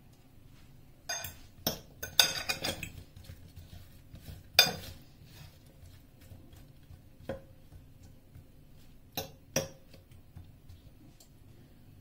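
A metal utensil stirring cherry tomatoes and garlic in oil in a glass bowl, clinking and knocking against the glass: a quick run of clinks in the first few seconds, a loud one about four and a half seconds in, then a few single clinks.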